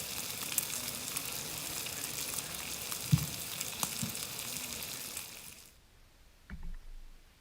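Food frying in a pan: a steady sizzle full of small crackles that cuts off abruptly about six seconds in, with a few soft low thumps.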